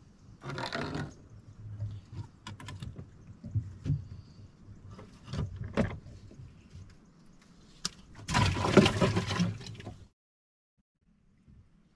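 Handling noises in a small boat as a caught giant freshwater prawn is dealt with: scattered knocks and rustles. About eight seconds in comes a louder, longer noisy burst that cuts off abruptly into silence.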